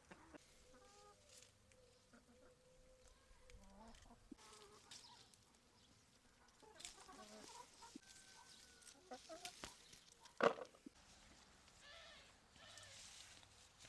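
Chickens clucking faintly in short scattered calls, with one sharp knock about two-thirds of the way through.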